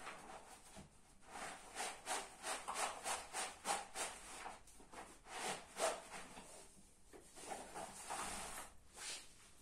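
Thick camp-bed fabric being handled and smoothed flat on a carpet: a run of short rubbing and rustling strokes with a brief pause in the middle.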